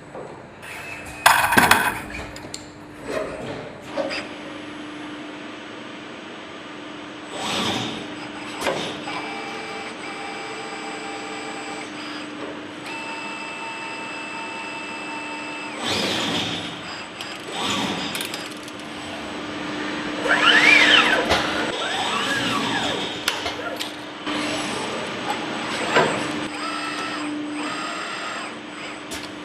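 Wafios CNC wire-bending machine at work: servo drives whine in short steady tones and in rising and falling glides as the bending head and feed move, with repeated sharp clacks from the tooling over a steady machine hum.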